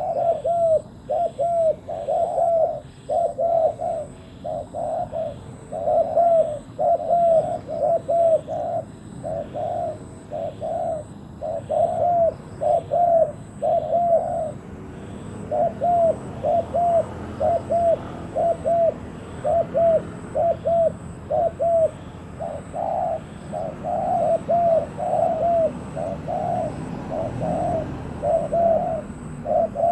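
Spotted doves cooing over and over: short, arched coos in quick runs of several notes, with a brief pause about halfway through.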